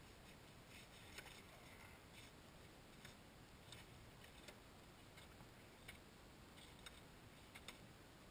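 Steel ice chisels jabbing down into lake ice to chip open a hole: faint, sharp, irregular clicks about once a second.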